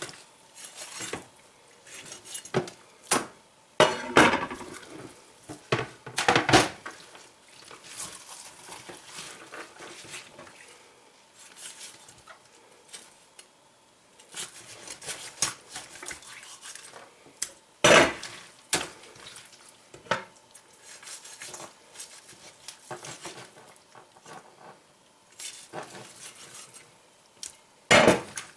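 French billhook chopping and cutting through a partly thawed whole chicken on a plastic cutting board: irregular sharp knocks of the blade striking the board, the loudest about 4, 6.5, 18 and 28 seconds in, with softer cutting and handling noises between.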